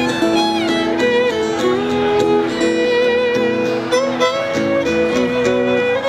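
A fiddle bowed live, holding long notes with some slides between them, accompanied by a strummed acoustic guitar.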